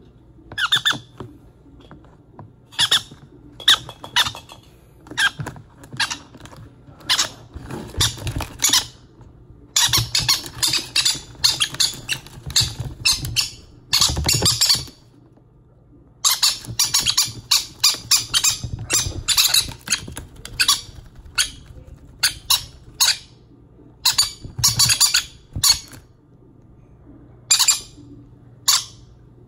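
Baby green-cheeked conures squawking and squeaking in rapid clusters of short calls while being syringe-fed: the food-begging calls of hand-fed chicks.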